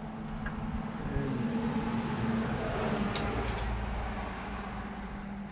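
A motor vehicle going past, its engine hum and road noise swelling and then fading away. A few light clicks come about three seconds in.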